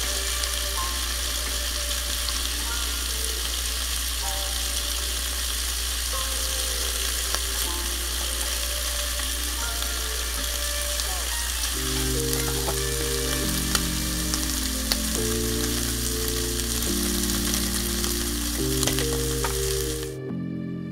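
Shrimp sizzling steadily as they fry in hot oil in a nonstick pan, with a few light clicks of wooden chopsticks turning them; soft background music grows stronger about halfway through. The sizzle cuts off just before the end.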